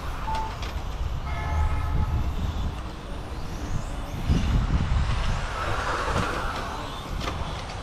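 Radio-controlled cars racing round an asphalt track, their motors whining up and down as they speed up and slow. Wind buffets the microphone, and a brief steady tone sounds about a second and a half in.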